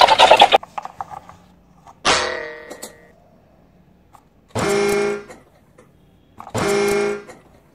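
Plastic toy train giving two steady horn-like toots of under a second each, about two seconds apart, as its face is pressed. A brief loud rattle comes at the start and a short tone fades away about two seconds in.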